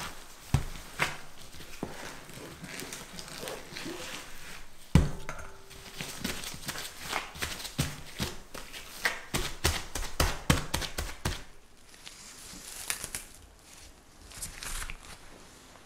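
Gloved hands pressing and patting buttery tart dough and crumbs together on a silicone baking mat: a run of soft taps, with one heavier thump about five seconds in. Near the end comes a crinkle of plastic wrap being spread over the mat.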